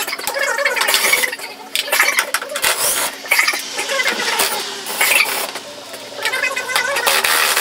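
Hand ratchet wrench clicking in uneven runs with short pauses as it loosens the fan shroud bolts, with metal tool clinks.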